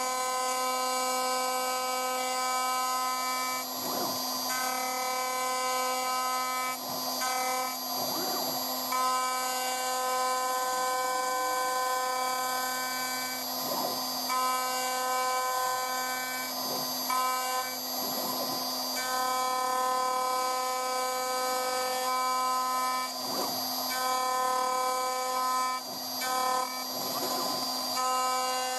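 CNC router spindle milling a pocket in aluminium plate with an end mill: a steady high whine made of several tones at once, broken every few seconds by a brief harsher cutting noise.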